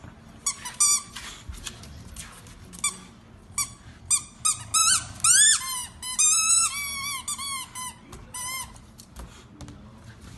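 English bulldog chewing a squeaky toy ball: a run of high squeaks, short at first, then longer ones that rise and fall in pitch and are loudest in the middle, stopping about eight and a half seconds in.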